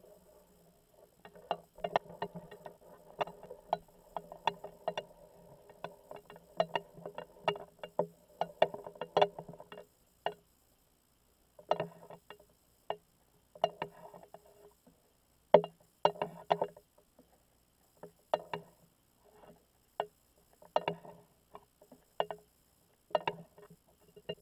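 Irregular sharp clicks and knocks on an underwater camera rig hanging on a tape measure, heard from inside the housing. Each knock rings briefly. They come thick and fast for about the first ten seconds, then in separate clusters with short gaps.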